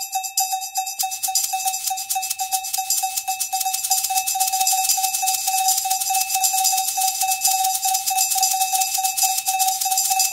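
Looping percussion music: a single high metallic note repeated about five times a second, joined about a second in by a fast, dense high rattle that keeps going.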